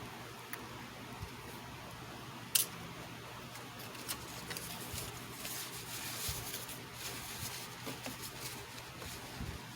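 Scattered small clicks and light taps, with one sharper click about two and a half seconds in and a busier run of light ticks in the second half, over a steady low electrical hum.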